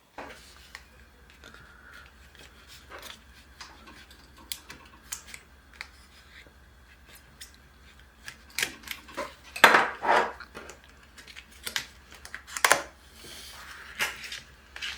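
Packaging of a lens protector being handled and opened: scattered clicks, taps and short rustles of card and plastic, with a louder flurry of rustling about two-thirds of the way in.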